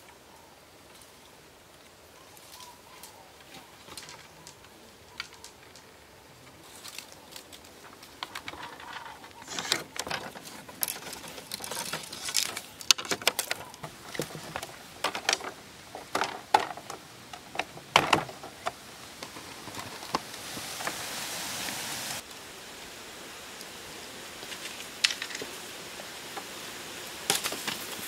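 Bamboo being worked by hand, heard as scattered sharp clicks, knocks and clatter with rustling in between, busiest in the middle. A short steady hiss comes near the end and cuts off suddenly.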